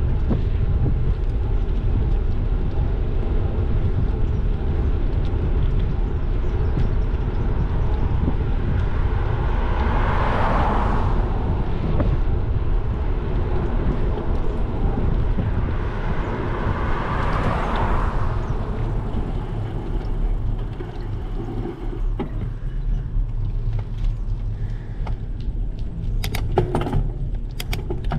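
Wind buffeting a bicycle-mounted action camera's microphone over steady tyre rumble on asphalt. Two cars pass, about ten and seventeen seconds in, each a swell of tyre noise that rises and fades, and there are a few sharp clicks near the end.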